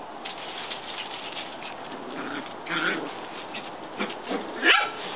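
Shetland sheepdog puppies playing on dry leaves: a steady scuffle and crackle of paws in the leaves, with two short high yips, about three seconds in and again, louder, near the end.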